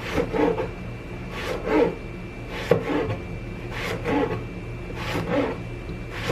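Cleaver slicing through long purple eggplants on a cutting board, about one cut a second, each a short rasping stroke of the blade through the flesh ending in a knock on the board.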